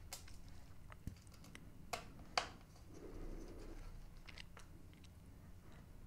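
Faint, scattered clicks and ticks of a Torx T5 precision screwdriver turning the tiny back-cover screws into a Dell XPS 13's aluminium bottom panel, the sharpest pair about two seconds in.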